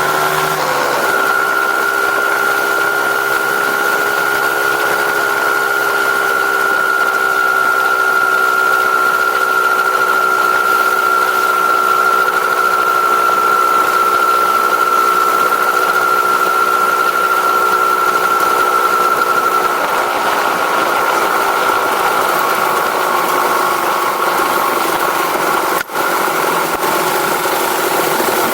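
Engine with its stock, unmodified exhaust running steadily at an even pitch. The sound changes slightly about twenty seconds in and dips for a moment near the end.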